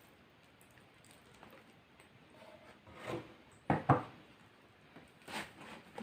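Close-miked eating sounds: a handful of short, soft mouth noises, the loudest a quick pair a little under four seconds in.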